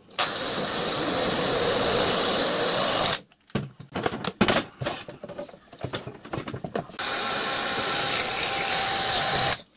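Cordless drill drilling into the riding car's metal frame: one run of about three seconds, then a few seconds of scattered knocks and clatter, then a second run of about two and a half seconds that stops just before the end.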